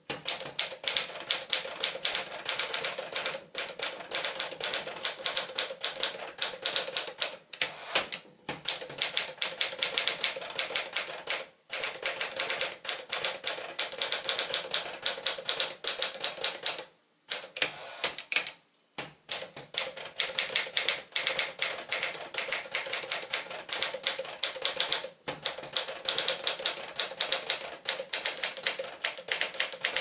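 1956 Smith-Corona Clipper manual portable typewriter being typed on briskly: rapid clacking of the keys and typebars striking the paper. The typing stops in a few short pauses, the longest lasting about two seconds a little past the middle.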